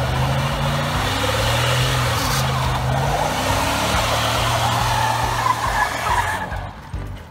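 Pickup truck doing a burnout: the engine held at high revs with its pitch wavering while the rear tyre spins and squeals against the pavement. The tyre noise stops abruptly near the end as the truck pulls away.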